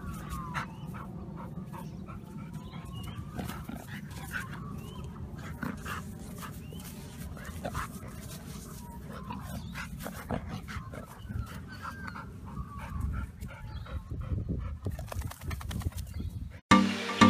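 A dog rolling on its back in grass and loose dirt: its body rubs and scrapes against the ground, with scattered small clicks and short vocal sounds from the dog. Loud electronic music cuts in abruptly near the end.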